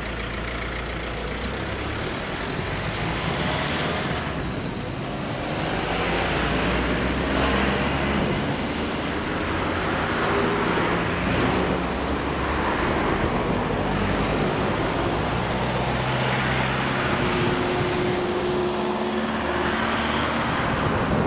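Road traffic: a line of cars and a van driving over the railway crossing one after another, each engine and its tyres swelling and fading as it passes close by.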